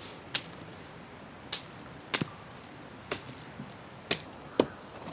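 Sharp knocks and snaps, six or so at irregular intervals of about half a second to a second, from cassava plants being dug and levered out of the soil with wooden poles.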